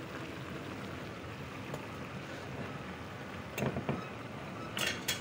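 Braise simmering in a pan over a gas burner: a steady hiss, with a couple of soft knocks a bit past halfway and two sharp clicks near the end.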